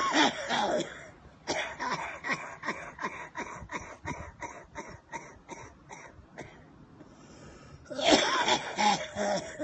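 A man's coughing fit: a harsh cough, then a long run of short, rapid hacking coughs, about three a second, growing weaker, and another loud bout of coughing near the end.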